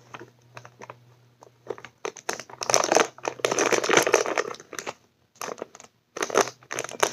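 Plastic wrapper of a blind-box toy crinkling and rustling in irregular bursts as it is handled and pulled open by hand, with a short pause about five seconds in.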